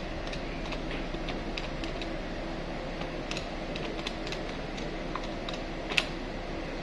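Desktop calculator keys pressed with the tip of a pen: a string of light plastic clicks, a few a second, with one sharper click about six seconds in.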